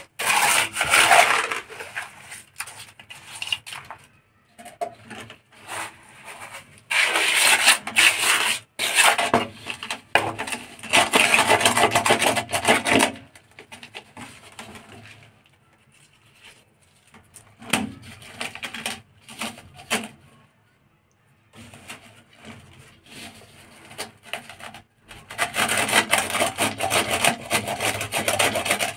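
Wet cement mortar being worked by hand and steel trowel in an iron mortar pan and around a PVC drain fitting: bouts of rapid scraping and rubbing strokes lasting several seconds, at the start, through the middle and near the end, with softer scuffing between.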